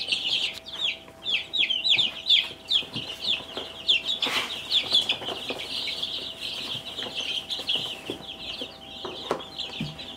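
A brooder full of baby chicks peeping continuously, many short, high, falling peeps overlapping. There is a brief noise about four seconds in.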